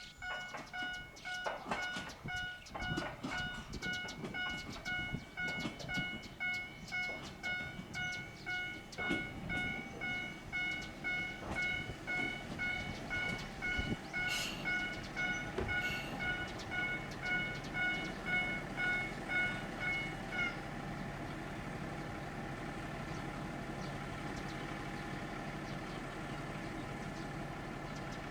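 A railway level-crossing warning bell dings in a steady repeating rhythm over scattered clicks and knocks from the train. About two-thirds of the way through the bell stops, leaving the diesel railcar's engine idling with a steady hum.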